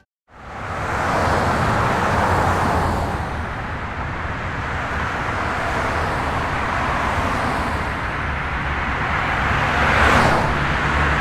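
Road traffic: a steady rumble of vehicles with tyre noise, swelling as cars pass, the loudest pass coming about ten seconds in.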